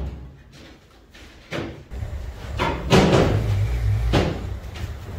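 A few loud knocks and slams, with a low steady rumble setting in about two seconds in and more knocks over it.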